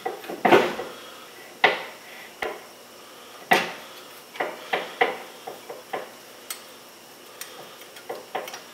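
Steel bearing-cap bolts being threaded in by hand on an open rear differential: an irregular series of light metal clinks and clicks as the bolts, caps and tools knock against the carrier and housing, the loudest about half a second in.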